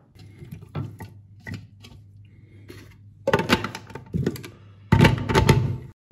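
Plastic parts of a hand-blender chopper attachment knocked and clicked together as the bowl is set down and the lid fitted, with two louder spells of clattering in the second half.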